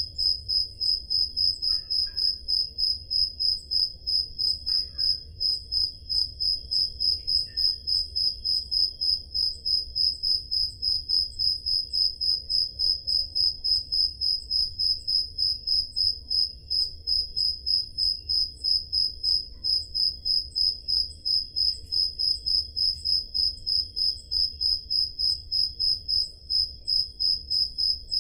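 Crickets chirping: one loud, high chirp repeating evenly about three times a second, with a fainter steady trill behind it.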